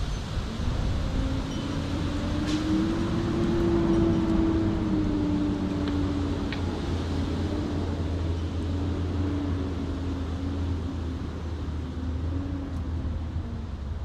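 A passing engine: a steady low hum with one engine tone that climbs in pitch and loudness over the first four seconds, then slowly sinks and fades. A few faint clicks are heard over it.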